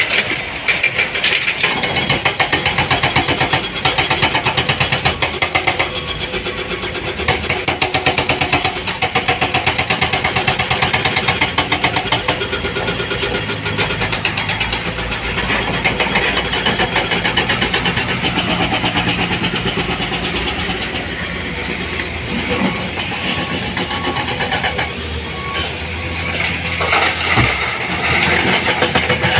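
Heavy diesel engine running with a fast, even clatter.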